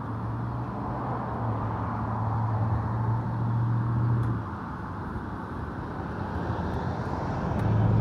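A low motor hum over a steady rushing noise. The hum cuts off abruptly about four and a half seconds in and comes back just before the end.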